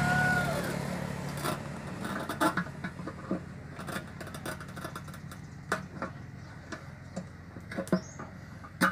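Honda Vario 110 FI fuel pump module being pulled out of its fuel tank by hand: irregular light plastic clicks, knocks and scrapes, with a sharper knock near the end. Background vehicle noise fades out in the first second.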